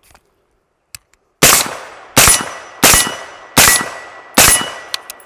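Arsenal Democracy AD-15 AR pistol in 5.56 firing five suppressed shots through a SureFire SOCOM 556 RC2 suppressor, about 0.7 s apart, each a sharp report with a short ringing tail.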